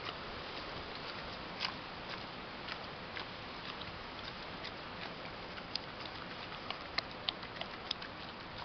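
A pig eating feed from a steel bowl: irregular chewing clicks, a few of them louder, over a steady hiss.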